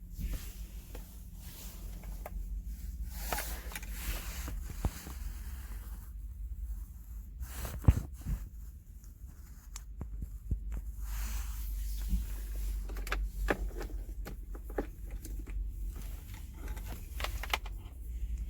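Handling noises close to the microphone: scattered clicks, rustles and scrapes, with one sharp knock about eight seconds in, over a steady low hum.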